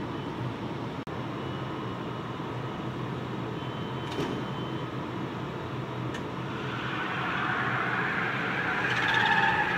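A SkyTrain approaching, its rush of wheel and track noise swelling over the last few seconds. Near the end the wheels begin to squeal in two high steady tones.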